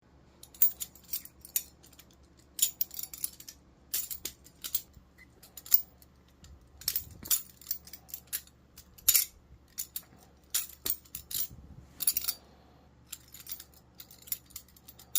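Butterfly knife (balisong) being flipped: quick clusters of sharp metallic clicks and clacks as the handles swing open and shut against the blade, with short pauses between runs.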